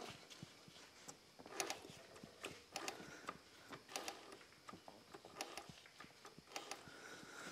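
Faint, irregular metal clicks and ticks from a gloved hand working the ring gear inside an open 10-bolt rear differential.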